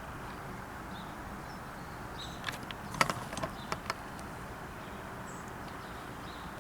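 A handful of short clicks and light knocks from car parts being handled and fitted back in place, bunched together in the middle, over a steady low background hiss.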